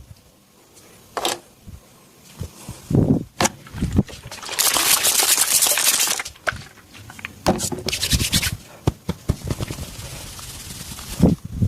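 Massage handling sounds: hands rubbing and scratching over hair and skin, with a long stretch of fast, crackly rubbing about halfway through, and scattered dull thumps and sharp clicks.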